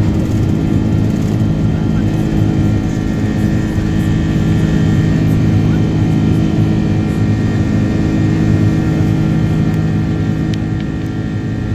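Airbus A330-800's Rolls-Royce Trent 7000 turbofans heard from inside the cabin during the climb just after takeoff. The engines give a steady drone with several held tones over a low rumble of engine and airflow noise.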